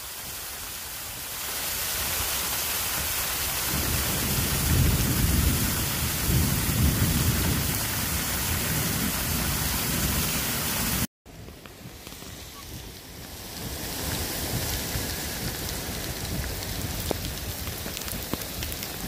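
Torrential rain pouring down on pavement, with water sheeting off a roof edge, as a steady hiss. A heavy low rumbling runs through the first half. The sound cuts out for a moment about eleven seconds in, then the rain comes back softer and builds up again.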